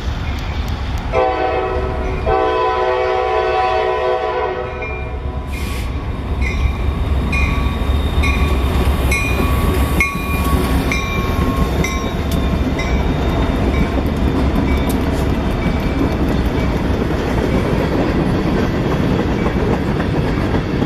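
Train horn sounding a short blast, then a longer one, as a train passes the station platform with a steady low rumble and clickety-clack of wheels over rail joints. A high ringing tone repeats about one and a half times a second for several seconds after the horn.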